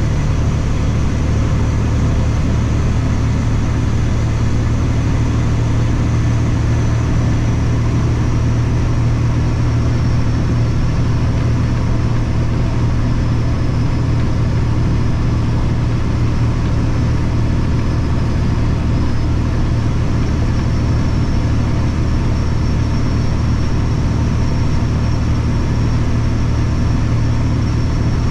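Kenworth W900 dump truck's diesel engine and road noise heard from inside the cab while cruising at steady highway speed: a steady low drone with a faint high whine above it.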